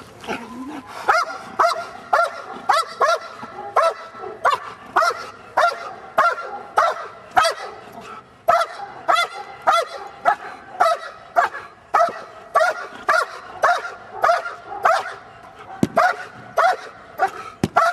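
Belgian Malinois barking steadily and rhythmically, about two barks a second.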